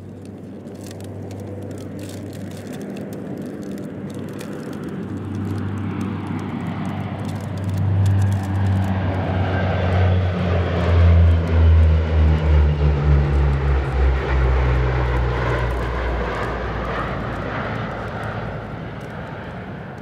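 Four-engine Allison T56 turboprop drone of P-3C Orion patrol planes flying low over in formation. The drone grows louder to a pulsing peak about halfway through, then drops in pitch and fades as they pass.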